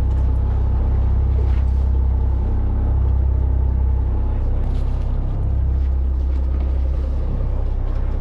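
Fishing charter boat's engine running steadily under way, a loud low drone.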